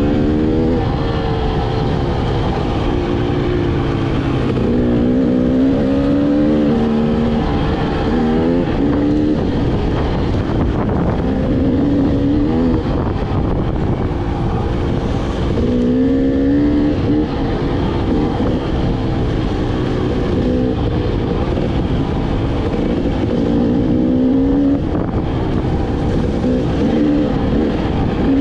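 Dirt bike engine heard on board the moving bike, its pitch rising and falling again and again as the throttle is opened and backed off along a rough trail, over a steady rush of wind and riding noise.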